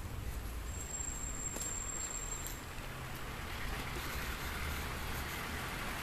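Street ambience: a steady low traffic rumble, with a passing car's tyre hiss swelling in the second half. A faint thin high tone sounds for about two seconds near the start.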